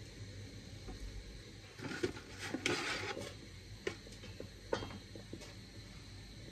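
Quiet kitchen handling noises as boiled lasagna sheets are lifted from the pot into a mesh strainer: a short swish about two seconds in, then a few light clicks and taps.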